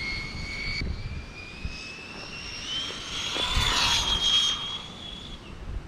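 Brushless electric motor of a WLtoys 104001 RC buggy whining at high speed, the whine climbing in pitch as the car accelerates, loudest about four seconds in, then fading.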